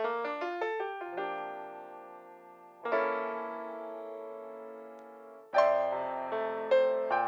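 Background music: soft piano playing a short run of notes, then held chords that fade, and a busier passage near the end.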